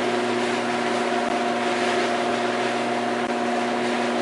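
Garage door opener motor running steadily with a constant hum as it lifts a sectional garage door up its tracks. The door rises smoothly, a sign that the newly replaced Wayne Dalton TorqueMaster spring is balancing it properly.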